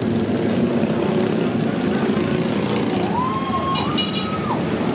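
Steady rumble of motorcycle and vehicle engines at a motorcycle parade. About three seconds in, two short siren-like tones each rise, hold and fall.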